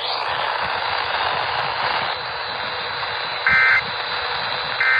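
Steady radio static hiss, then two short bursts of Emergency Alert System digital data tones, a harsh two-pitch warble about 1.4 seconds apart: the end-of-message code closing the severe thunderstorm warning.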